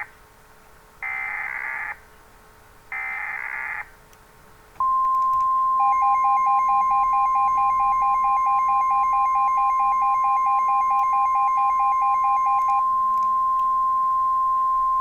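Emergency Alert System signal: two short EAS SAME header data bursts about a second apart, then a long steady attention tone, joined for several seconds by a second, fast-pulsing lower tone.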